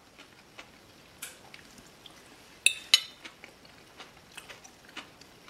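A metal fork clinking on a ceramic plate: two sharp clinks about a quarter second apart, nearly three seconds in, each ringing briefly. Faint chewing and small ticks in between.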